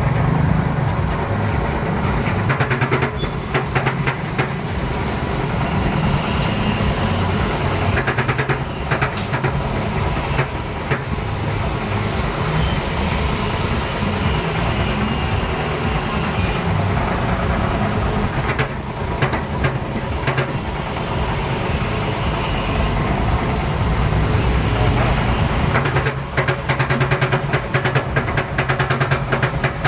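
Wire-end trimming machine for cage-making running with a steady motor hum, with several stretches of rapid clattering as it cuts off excess wire ends.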